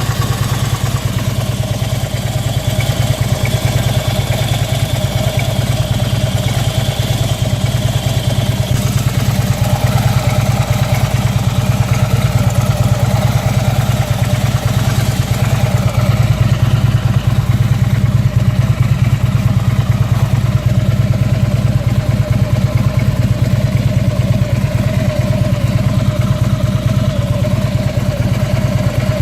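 Harley-Davidson Ultra Limited's Twin Cam 103 V-twin engine running steadily, with a faint high-pitched tone heard for several seconds in the first third. The owner describes a pitchy chirping noise of unknown cause, barely there at idle and loudest when cruising between 1800 and 2500 rpm; he has ruled out the muffler brackets and engine mounts.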